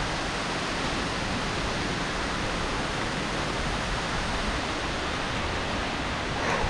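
Large waterfall pouring down: a steady, even rush of falling water.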